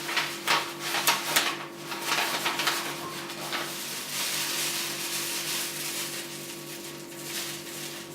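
Lavender rustling and crackling against a paper funnel as handfuls are pushed into a copper still column: a quick string of crisp rustles, then a softer continuous rustle. A faint steady hum runs underneath.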